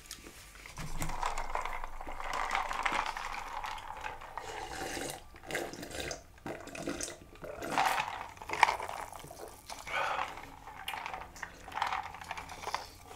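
A person slurping liquid in a run of wet slurps with short breaks between them.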